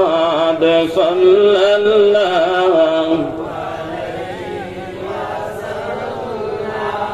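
A man chanting in a slow, drawn-out melody with long held, wavering notes. The chant is strong for about the first three seconds and softer after that.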